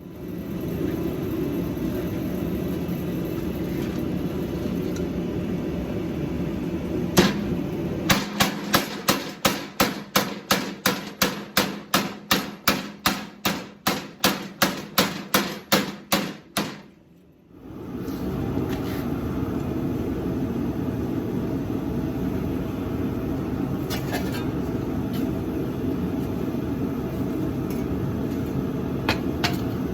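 Tabletop power hammer striking a hot steel knife blade in a slanted jig to even out the bevels: a run of evenly spaced blows, about three a second, for some nine seconds. Before and after the blows, steady running noise of shop equipment.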